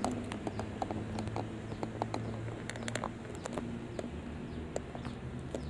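Irregular small clicks and taps from hands handling and fitting together the parts of a ring light and phone stand, over a steady low hum.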